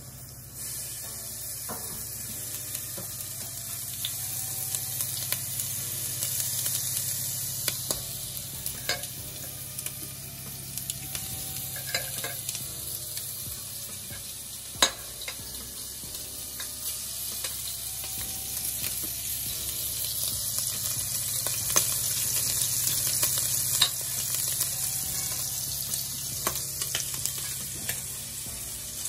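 Pieces of raw lobster meat frying in a hot non-stick pan, a steady sizzle that starts about half a second in, when the first pieces go in. A few sharp clicks of a metal spoon against a steel mixing bowl are heard through it.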